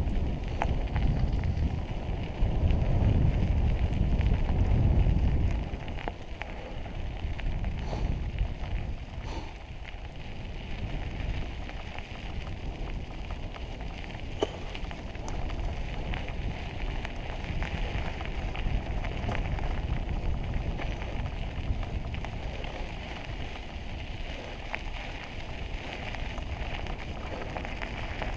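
Mountain bike tyres crunching and crackling over a gravel trail while riding, with a few scattered clicks and rattles. Wind rumbles on the microphone, heaviest for the first five seconds or so.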